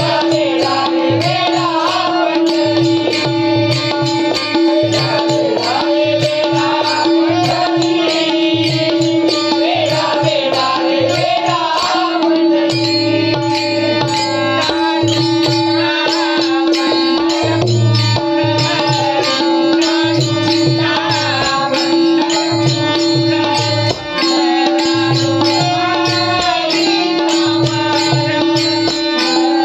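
Marathi devotional bhajan: a voice sings a winding melody over a steady held drone note, with a drum keeping a regular beat.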